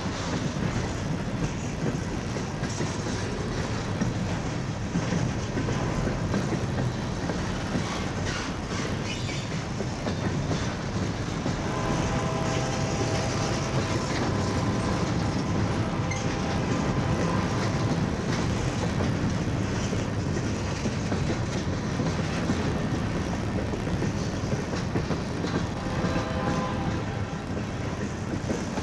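Freight train cars rolling past steadily, with clickety-clack over the rail joints. Two short squeals, one about halfway through and one near the end.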